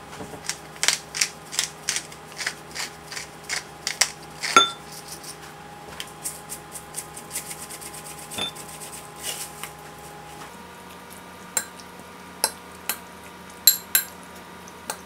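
Kitchen utensils and dishes clinking and tapping: a quick run of sharp taps in the first few seconds, then sparser clinks.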